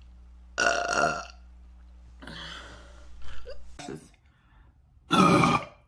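A woman burping loudly twice: a long burp about half a second in and a shorter one about five seconds in, with fainter sounds between.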